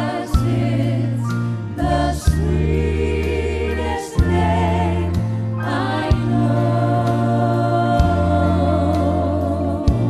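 A woman singing a slow gospel worship song into a handheld microphone, her held notes wavering with vibrato, with backing singers and a live band underneath. The bass moves to a new held note every second or two, marked by occasional sharp drum or cymbal hits.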